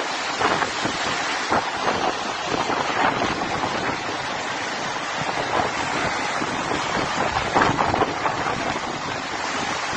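Fast floodwater rushing and splashing through a flooded street.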